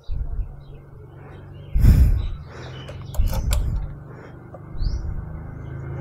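Yamaha R15M's single-cylinder engine running with a low, even hum, surging briefly in a couple of short revs about two and three seconds in. Birds chirp faintly in the background.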